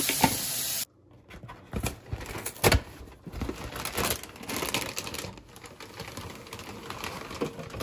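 Tap water running into a kitchen sink, cut off abruptly about a second in. Then the plastic liner bag of a cereal box crinkles and rustles, with a few sharp knocks.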